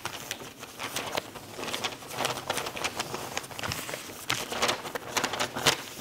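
Sheets of origami paper rustling and crackling as two people fold and crease them by hand, in quick irregular crinkles, with sharper ones in the last couple of seconds.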